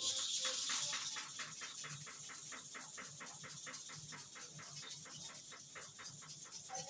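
Hair-clipper blade rubbed rapidly back and forth on an oiled, kerosene-wetted sharpening stone, an even gritty scraping of about five strokes a second, a little louder in the first second.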